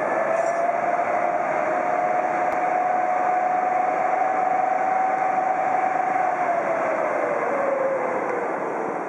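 ChS4 electric locomotive hauling a passenger train slowly along a station platform: steady running noise with a whine that holds one pitch, then drops in pitch about seven seconds in.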